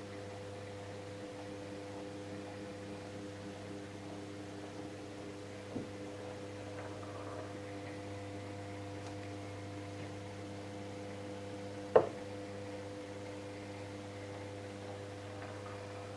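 Steady electrical mains hum made of several held tones. There is a faint click about six seconds in and a sharp knock about twelve seconds in, which is the loudest sound.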